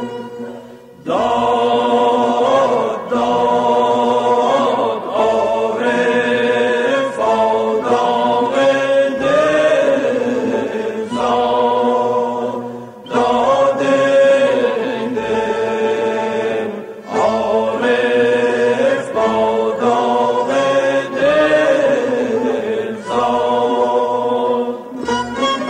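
Persian classical tasnif in avaz Bayat-e Tork: a sung melody in phrases of a few seconds with short breaths between, over an ensemble of Persian traditional instruments.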